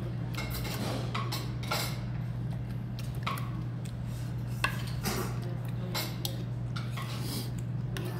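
Metal spoon and chopsticks clinking against a small stainless-steel bowl during eating: a scatter of short, sharp clinks over a steady low background hum.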